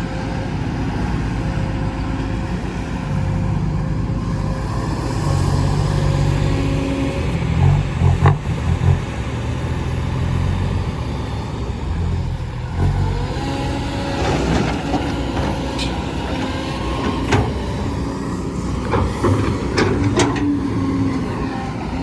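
Loaded dump truck's 240-horsepower engine running under way, with occasional knocks and rattles.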